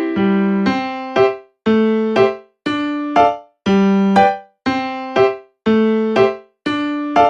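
Background piano music: short, bright piano chords struck about once a second, each fading out, with brief breaks between phrases.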